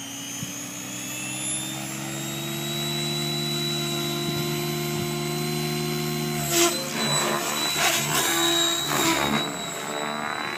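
Mikado Logo 600 electric RC helicopter spooling up on the ground: a steady motor and rotor whine that climbs slowly in pitch. From about six and a half seconds in it lifts off, and the pitch swoops rapidly up and down with loud rotor rushes as it climbs and manoeuvres.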